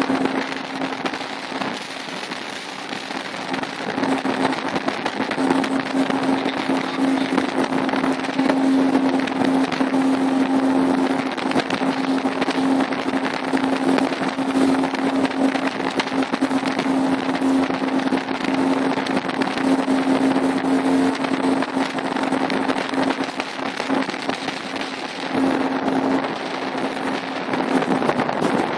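Motor of a small motorboat running at a steady speed with a constant hum, under a dense crackling rush of wind buffeting the microphone and choppy water against the hull.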